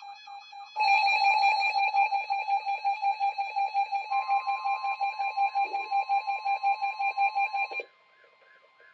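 Weather-alert receiver's alarm: a rapidly pulsing high beep, quieter at first and much louder from just under a second in. A steady, slightly higher alert tone joins about four seconds in, and both stop together about eight seconds in.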